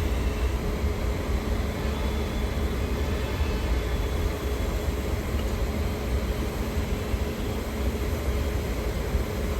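Train at a railway station: a steady low rumble with a constant hum, unchanging throughout.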